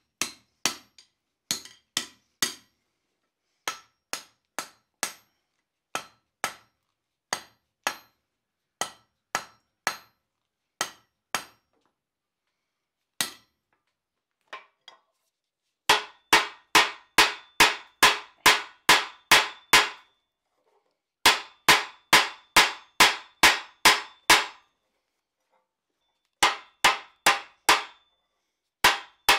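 Hand hammer striking the red-hot end of a 5/8-inch round steel bar on an anvil, upsetting it and shaping it toward a ball, each blow with a short metallic ring. The blows are spaced out at first, then come in quick runs of about three a second with brief pauses between runs; near the end they fall on the bar set in a swage block.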